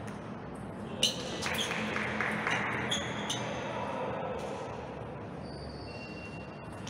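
Table tennis ball clicking off the bats and table, about five sharp knocks in the first half, then a lull.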